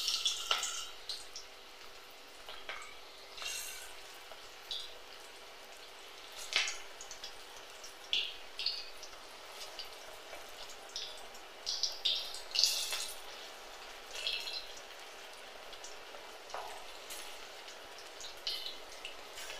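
Onion pakoda batter deep-frying in hot oil: a faint steady sizzle with irregular crackles and pops as more pieces are dropped in.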